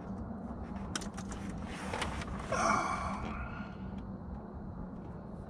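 Small sharp clicks of wire being cut and handled, the clearest about a second in, then a breathy sigh about halfway through, over a steady low hum.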